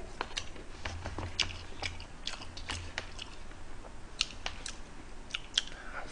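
Close-miked eating: chewing fried food and rice, with irregular wet clicks and smacks of the mouth and chopsticks tapping in a paper bowl.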